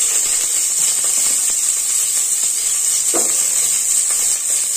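Chopped onions sizzling in hot oil in an aluminium pot: a steady high hiss.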